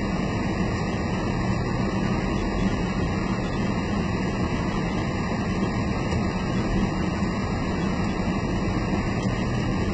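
Steady noise inside a moving car's cabin: an even road and engine drone with a low hum, and the air conditioning blowing.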